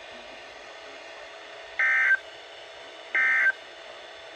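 NOAA Weather Radio SAME digital data bursts: two short, identical electronic bursts about a second and a half apart, over a low steady broadcast hiss. They are the end-of-message code that closes a warning.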